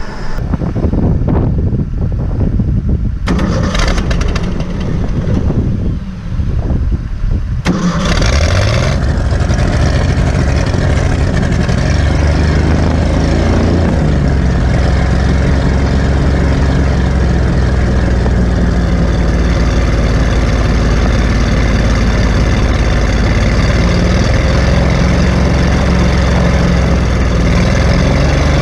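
Old gasoline engine cranking and sputtering irregularly, catching about eight seconds in with a brief rise in revs, then running steadily, its carburetor's needle and seat just cleared of debris that had been starving it of fuel.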